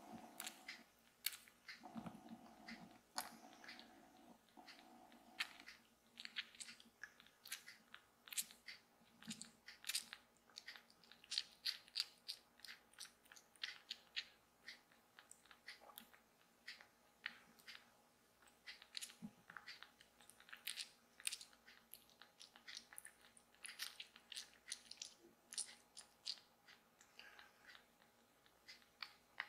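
Orange tabby kitten sucking milk from a nursing bottle: faint wet smacking and clicking of its mouth on the rubber nipple, several irregular clicks a second.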